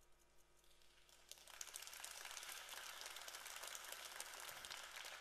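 Faint audience applause, a dense patter of many hands clapping that starts about a second and a half in and continues steadily.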